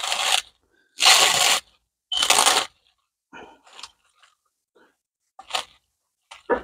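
Plastic cling film being pulled and wrapped over aluminium foil pans: three loud rustling pulls of about half a second each, then a few faint short crinkles.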